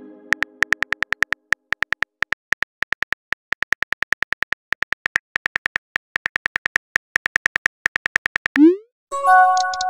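Texting-app sound effects: a long run of keyboard-tap clicks, about six a second, as a message is typed out. Near the end the clicks stop, and a short rising whoosh and a bright chime of several tones mark the message being sent.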